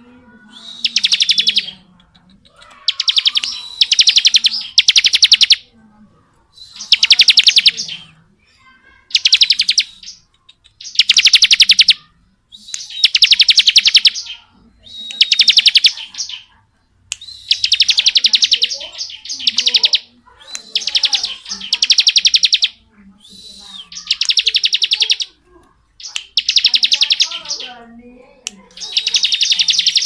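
Bar-winged prinia (ciblek) singing its long 'ngebren' song: a very fast, rattling high trill in bursts of about a second, repeated roughly every two seconds.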